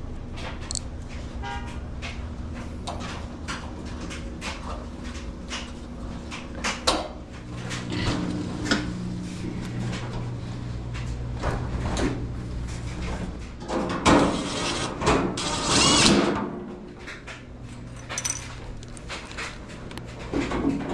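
Sheet-metal panels and door of an Amana clothes dryer being handled and fitted back on during reassembly: a run of clicks, taps and knocks, with louder metal clatters about fourteen and sixteen seconds in.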